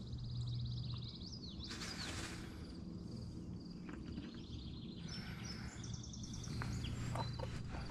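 Songbirds singing outdoors: fast trills and whistled, sliding notes, at the start and again about five seconds in. Underneath runs a steady low hum, with a brief rush of noise about two seconds in and a few light clicks near the end.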